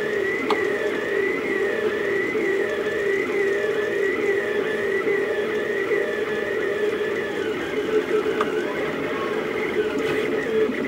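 Stepper motors of a Rostock delta 3D printer whining as the print head traces fast circular moves at high print speed. The pitch rises and falls in a steady repeating pattern, roughly twice a second.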